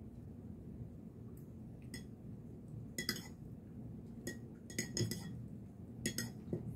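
A metal spoon clinking against a cup as instant coffee is stirred: a string of light, irregular clinks, each with a brief ring.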